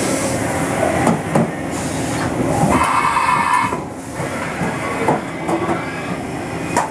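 Steady machine-shop machinery noise, a mechanical hum with hiss. A brief high whine sounds about three seconds in, and a few scattered knocks come through.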